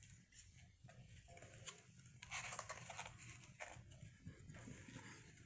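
Near silence with faint rustles and a few light clicks of hands handling a paper instruction sheet and plastic toy parts.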